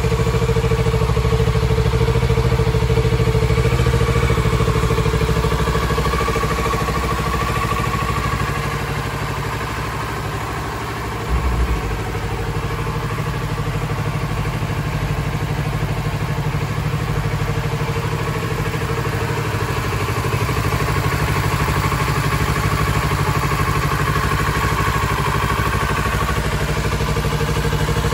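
Kawasaki Z650RS's 649 cc parallel-twin engine idling steadily, with one brief low thump about eleven seconds in.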